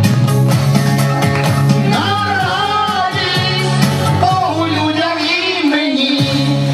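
A woman and a man singing a song into microphones over amplified backing music with a steady beat.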